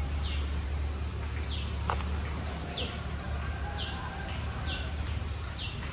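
Steady high-pitched insect drone, with a short falling chirp repeating about once a second.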